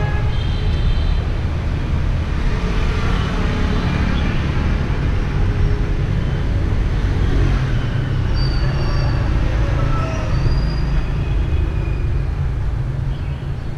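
City street ambience: a steady low rumble of road traffic, with a few faint short high tones a little past the middle.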